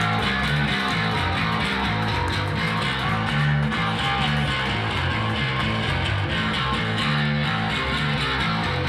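Live band playing a guitar-led song at steady full volume, with a low bass line stepping from note to note.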